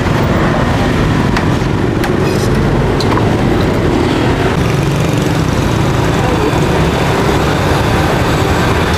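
Steady low rumble of street traffic, with a few light clicks in the first few seconds.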